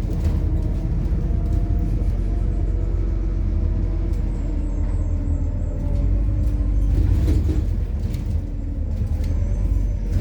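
MAZ-103 city bus running on compressed methane, heard from on board: a steady low engine and road rumble with scattered short rattles and knocks.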